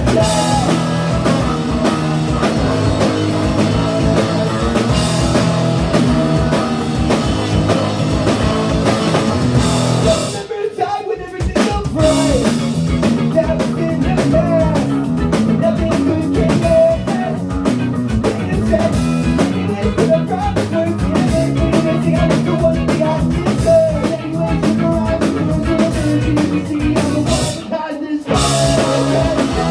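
A ska-punk band playing live, with drum kit, guitars and singing. The full band drops out briefly twice, about a third of the way in and again near the end.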